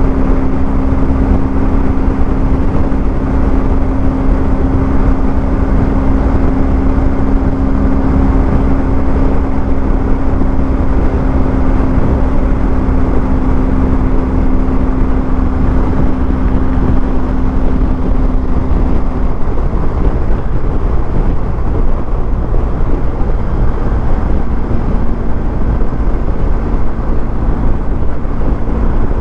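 BMW R1250GS boxer-twin motorcycle engine running at a steady cruising speed under loud wind and road noise. The engine's steady hum drops away about two-thirds of the way through and comes back at a slightly lower pitch near the end.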